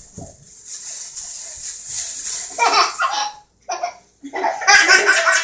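Young child laughing in short bursts of giggles, starting about halfway in and getting louder and fuller near the end. A high hiss fills the first half.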